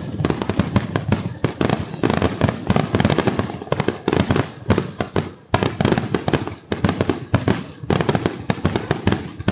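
Fireworks display: aerial shells bursting in rapid, near-continuous succession, a dense barrage of bangs, with a brief lull about five and a half seconds in.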